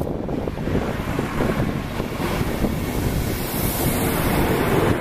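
Yellow DB Netz maintenance train, a control car pushed by an electric locomotive, passing close at speed: a steady rush of wheels on rails and moving air, with a hiss that grows louder in the second half.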